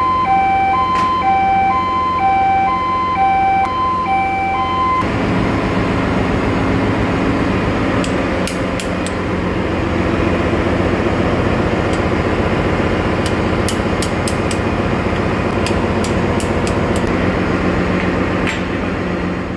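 Steady engine-room machinery noise with sharp metal knocks of hand tools on the filter housing at intervals. For the first five seconds an electronic two-tone beep alternates about twice a second, then stops.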